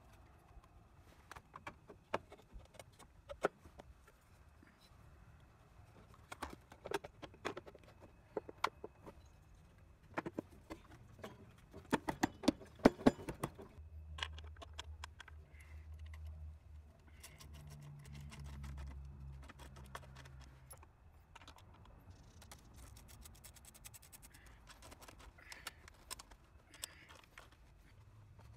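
Hand-tool work on a scooter: the plastic transmission cover knocking against the engine case as it is fitted, scattered metal clinks, then a burst of rapid clicking from a ratchet running in the cover bolts with a 10 mm socket. A low hum comes in about halfway through and lasts several seconds, and light clicking follows near the end.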